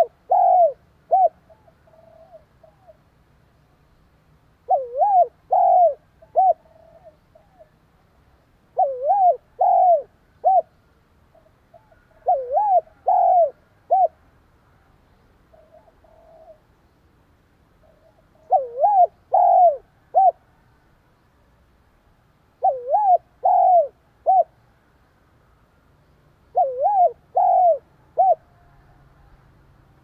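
Spotted dove cooing its song: short phrases of three or four notes, a rising double coo followed by clipped notes, repeated about every four seconds.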